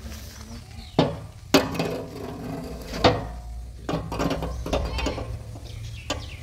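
Steel rebar rod knocking and scraping inside the metal filler neck of a JCB 3DX backhoe loader's tank as it is pushed down: sharp metallic knocks with a short ring, the loudest about one, one and a half, and three seconds in, and more scraping clatter between them.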